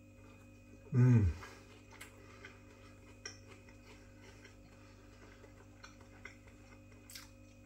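A man tasting a bite of Yorkshire pudding gives a short, low 'mmm' that falls in pitch about a second in. After it come only faint, scattered clicks of eating and cutlery.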